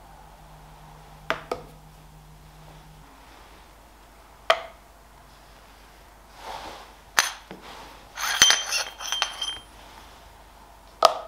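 Knocks and clinks of a steel shaft and an aluminium bearing housing being handled, set down and touched together. A few sharp knocks are spread apart, then a cluster of ringing metallic clinks comes about eight to nine seconds in.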